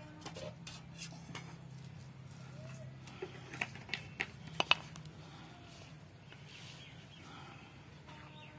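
A hand mixing and pressing flour with melted jaggery in a steel bowl: soft scraping with scattered clicks, and a run of sharper clinks against the bowl about three to five seconds in. A low steady hum runs underneath.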